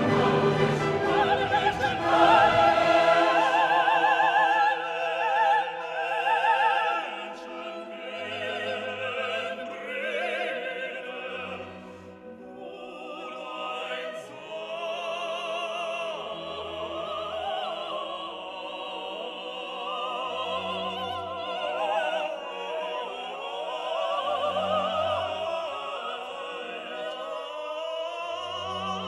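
Background classical music with an operatic voice singing with vibrato over orchestral accompaniment.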